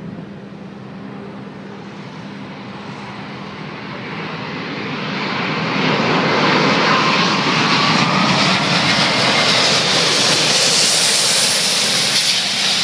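Airbus A380's four Rolls-Royce Trent 900 turbofan engines at approach power as the airliner comes in low to land. The jet noise grows louder over the first six seconds and then stays loud as the aircraft nears touchdown.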